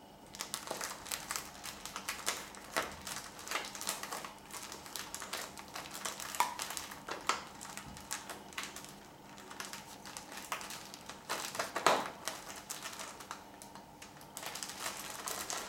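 Thin plastic bag crinkling and crackling as fingers pick at its tied neck to undo the knot and open a takeaway bag of soup. It is a rapid, irregular crackle with a few sharper crinkles, and it eases off near the end.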